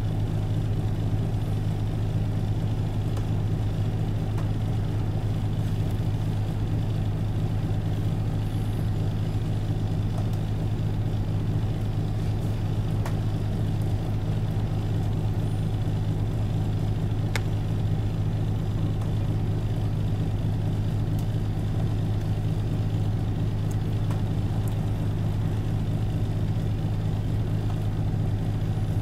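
Isuzu Erga Mio city bus's diesel engine idling steadily with the bus standing still, heard from inside the passenger cabin as a constant low hum.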